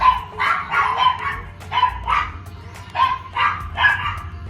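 Dogs barking repeatedly, about two barks a second in short runs, alerted by a fox near the chicken coop.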